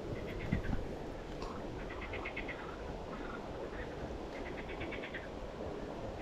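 Short trills of quick clicking pulses from an animal, about ten pulses a second, repeating every couple of seconds over a steady low background noise. A soft knock about half a second in.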